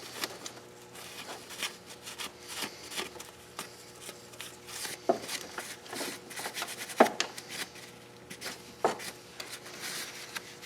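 Paper towel rubbed over engine metal surfaces in short wiping strokes, to clean them before an intake manifold is fitted. Three sharp clicks or knocks come about five, seven and nine seconds in.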